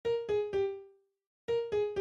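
Music: an electric-piano-like melody of three quick notes stepping down in pitch, each ringing out and fading, with the same three-note phrase repeated about a second and a half later.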